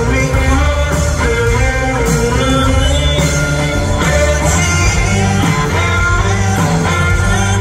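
Live blues-rock band playing: electric guitar over bass and drums, with a man singing, amplified through an arena's sound system.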